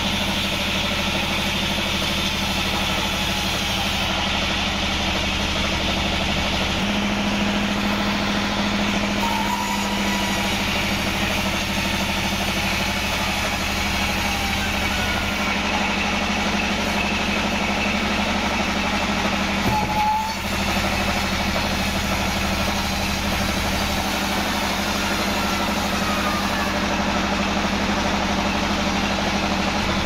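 Band sawmill running steadily, its blade cutting lengthwise through a wadang log, with small shifts in tone as the cut goes on and a brief dip about two-thirds of the way through.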